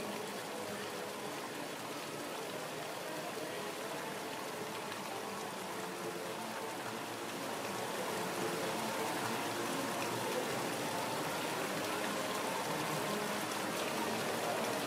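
Steady rain falling, a constant hiss that grows a little louder about eight seconds in.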